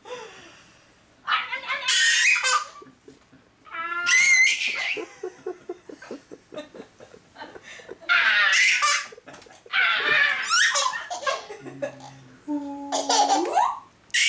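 A baby's belly laughs in repeated bursts, with an adult laughing and making silly vocal sounds along with her. Near the end a held, steady vocal tone slides up in pitch.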